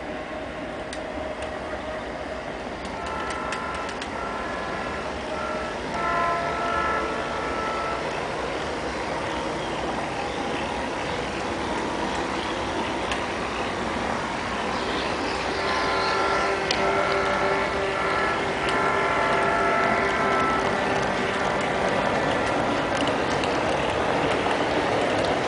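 G scale model diesel train running on its track with a steady rumble that grows louder, while the locomotive's sound unit sounds a multi-tone air horn: short blasts about three and four seconds in, a longer one about six seconds in, and a string of blasts from about sixteen to twenty-one seconds in.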